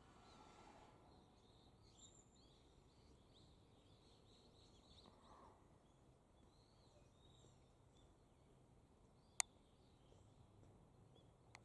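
Faint, scattered chirps of small birds, with one sharp click about nine seconds in.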